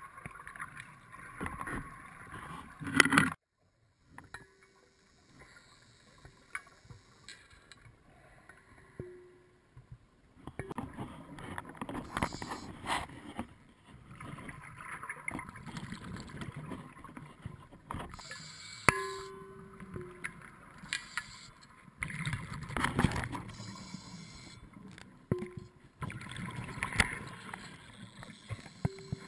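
Scuba divers' exhaled bubbles rushing past an underwater camera in bursts every few seconds, with a few brief low hums in between.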